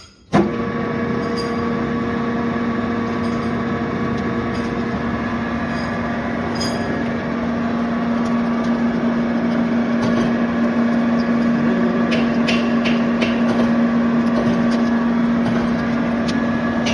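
Lathe running steadily during the machining of a worm shaft, with a strong motor hum over a noisy cutting wash. It starts suddenly about half a second in, and a few light clicks come in the second half.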